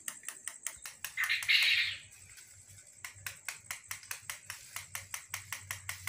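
Electric soldering irons dabbed rapidly onto plastic kite sheeting to spot-fuse colored plastic in place, making a quick run of light ticks, about five a second. A short hiss comes about a second in.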